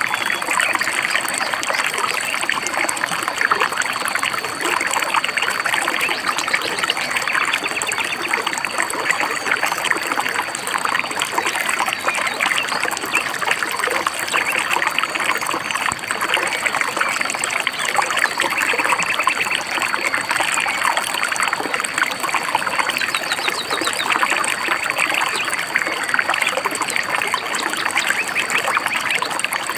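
Shallow stream babbling steadily over rocks, a dense continuous trickling and splashing of water. A short run of high bird chirps comes in about three quarters of the way through.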